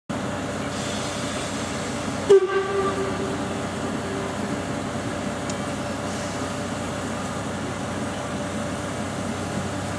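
Class 52.80 steam locomotive standing in steam with a steady hiss. About two seconds in, a sudden loud sound gives way to a single clear note that dies away over about two seconds.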